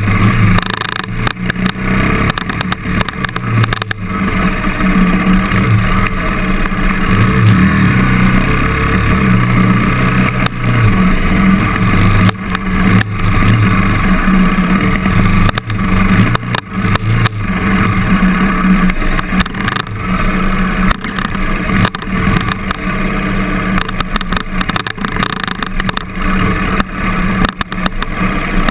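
KTM enduro motorcycle engine running as the bike is ridden along a rough trail, its note rising and falling with the throttle. Frequent knocks and rattles come through as the bike jolts over the ground.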